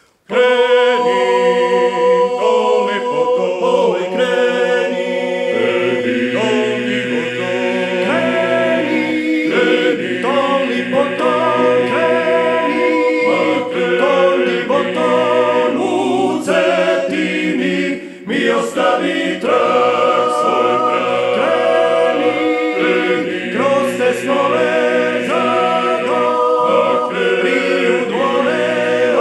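Male klapa ensemble singing Dalmatian-style close multipart harmony a cappella, all voices coming in together at once at the start. There is a short break for breath about eighteen seconds in.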